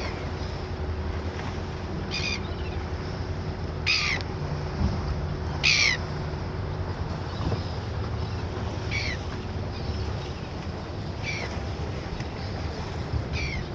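A bird calling: short, high calls that slide downward, repeated every two seconds or so, over a steady low rumble.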